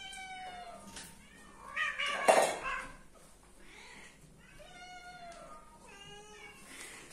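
Female cats in heat yowling: a series of long, drawn-out calls, the loudest a harsh screech about two seconds in, followed by further calls near the end.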